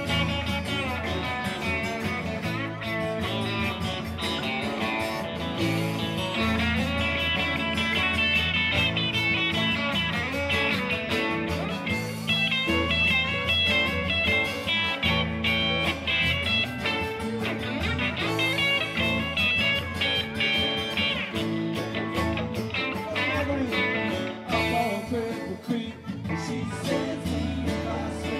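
Live music with plucked guitar over a steady bass line, with quick runs of high picked notes about halfway through and again a few seconds later.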